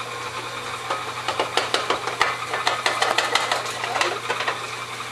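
Electric stand mixer motor running steadily with its beater turning, while a quick run of clicks and taps from a spoon on a small bowl comes between about one and four and a half seconds in, as ingredients are added to the mixing bowl.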